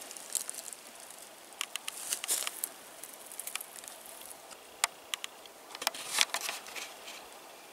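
Scattered light crackles and sharp clicks of dry plant material being disturbed, in small clusters about two seconds in and again around six seconds in, over a faint hiss.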